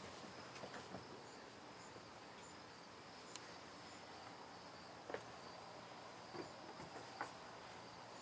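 Faint insect chirping: a thin steady high tone with a soft regular pulse above it, and a few soft taps scattered through.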